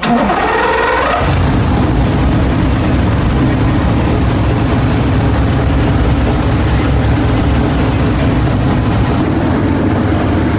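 Car engine started on a push-button starter, catching with a quick rise in revs in the first second, then running loud and steady.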